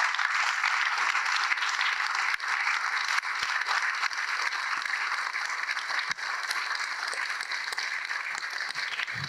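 An audience applauding, a steady dense clapping that thins out near the end.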